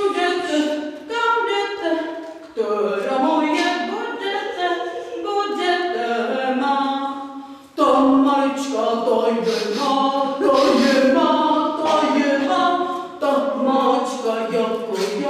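A small group of voices singing a song unaccompanied, with a short break about halfway through.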